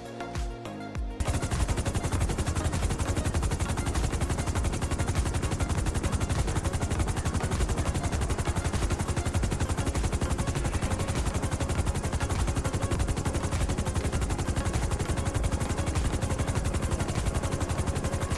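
Music gives way, about a second in, to continuous rapid automatic gunfire, a machine-gun sound effect firing in one unbroken steady burst.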